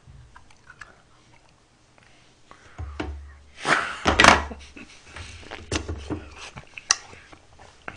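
A man chewing a frozen strawberry with faint crunching clicks, then laughing breathily about four seconds in, followed by more short breathy laughs and exhales.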